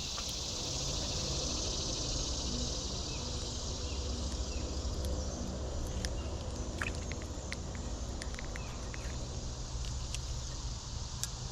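A steady, high-pitched chorus of summer insects, with a low rumble underneath and a few faint clicks.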